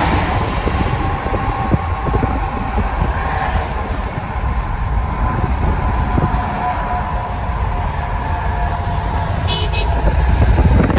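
Steady road and tyre noise of a moving car, with a heavy low rumble and faint held tones now and then, mixed with a passing freight train. The noise grows louder and harsher near the end.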